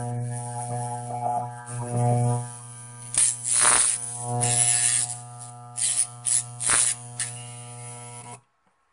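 Growler armature tester humming steadily while a hacksaw blade laid on the armature's laminations buzzes and rattles in several bursts as the armature is turned. The blade's buzzing marks a shorted coil. The hum cuts off suddenly near the end when the growler is switched off.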